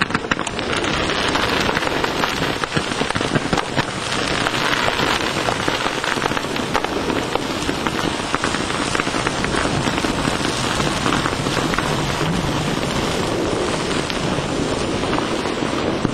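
Fireworks crackling: a steady, dense crackle of many small pops, with no single big bang standing out.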